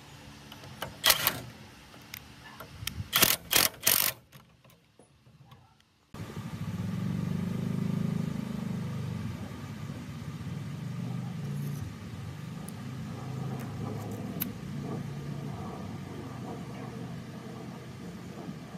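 A few sharp metallic clicks and knocks. Then, after a short gap, the restored table cutter's belt-driven motor starts abruptly and runs with a steady low hum.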